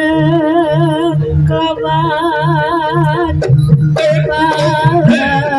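Jaranan gamelan music: a long, strongly wavering melody line held over an evenly repeating low gong-chime pulse, breaking off briefly a little past the middle with a couple of sharp cracks before the melody resumes.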